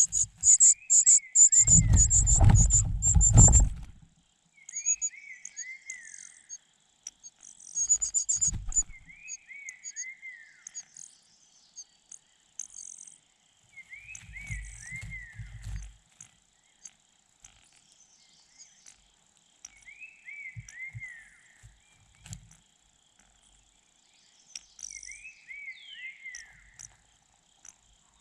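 A bird calling a short phrase of three or four clear falling notes, repeated about every five seconds, over a faint steady insect trill. In the first few seconds there is rapid high chirping together with a loud low rumble.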